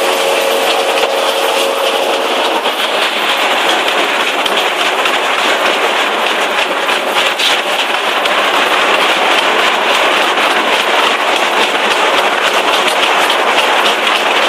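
CAT 320DL amphibious excavator's diesel engine running steadily, a loud even mechanical din with a faint steady hum in the first couple of seconds.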